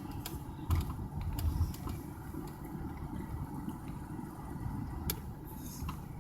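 Steady low rumble of a car driving, heard from inside the cabin, with a few light clicks and knocks about a second in.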